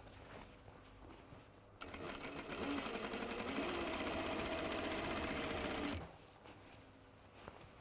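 Sewing machine running steadily as it stitches the layered knit waistband with its elastic. It starts about two seconds in and stops about four seconds later.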